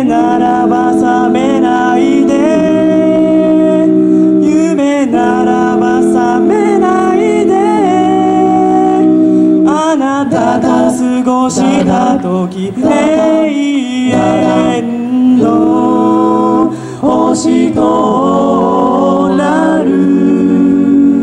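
Male a cappella group of five singing through microphones: several voices in close harmony, holding and changing chords with no lyrics picked out, as in an instrumental break of a rock song.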